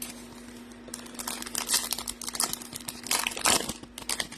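A trading-card pack's plastic wrapper crinkling and tearing as it is ripped open. From about a second in there is a quick, irregular run of crackles.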